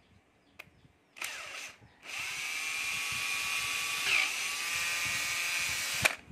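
12 V cordless drill motor running: a brief spin about a second in, then a steady high whine for about four seconds that dips in pitch once midway and stops abruptly with a click near the end, the drill's brake catching. The seller says this drill has its brake but has lost its speed control.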